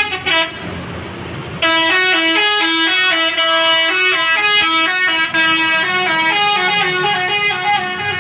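A tour bus's 'telolet basuri' musical horn playing a tune of held notes that step up and down in pitch. It starts about a second and a half in, after a few short toots.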